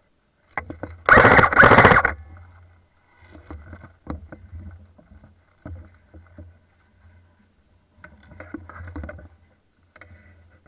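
Footsteps and brush rustling and scraping against a gun-mounted camera while walking through woodland undergrowth, with one loud rustling burst about a second in that lasts about a second. Scattered crackles of leaf litter and twigs follow.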